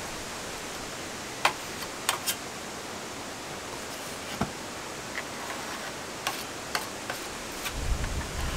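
Putty knife tapping and scraping against a wooden wagon-wheel rim while wood filler is spread, giving a handful of sharp, irregular clicks over a steady hiss. A low rumble builds near the end.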